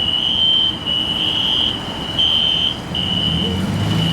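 Building fire alarm sounding: a steady high-pitched tone broken by short gaps about every second. A vehicle engine's low rumble comes in near the end.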